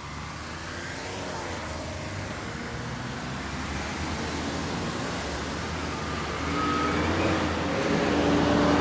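Road traffic: a motor vehicle's engine drawing nearer and growing steadily louder, its engine note strongest near the end.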